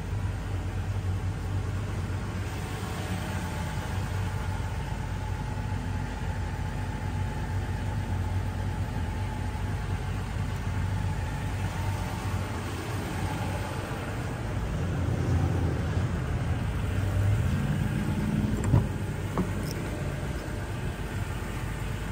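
Toyota Tacoma engine idling with a steady low rumble, with one sharp knock a few seconds before the end.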